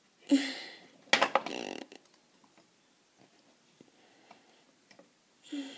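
A small plastic toy horse figurine being handled and laid down on a plastic toy bench: a knock just after the start, then a short clatter of knocks about a second in, and faint handling ticks after.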